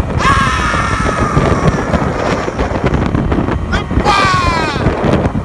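A man's voice letting out a long, drawn-out call, then a shorter, falling "Amen" about four seconds in. Under both is a heavy, constant rumble of wind buffeting the microphone on a moving boat.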